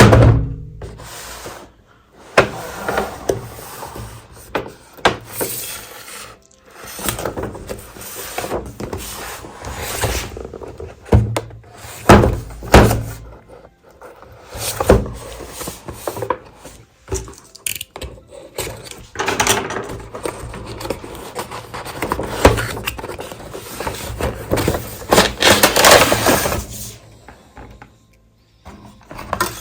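Irregular knocks, scraping and rubbing from handling a toy RC car and its packaging during unboxing, with several sharp loud knocks and a quieter stretch near the end.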